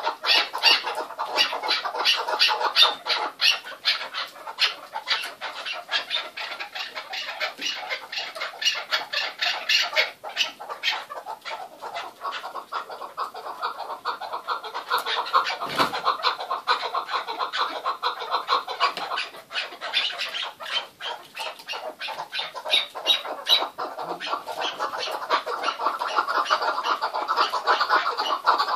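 Chukar partridges calling: a fast, unbroken run of short repeated notes, with a single thump about halfway through.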